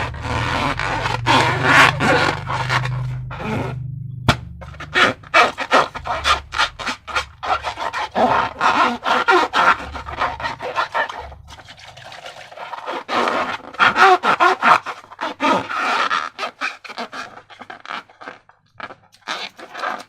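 Sticky slime being squished and worked by hand: dense wet clicking and crackling in bursts, thinning to scattered clicks near the end.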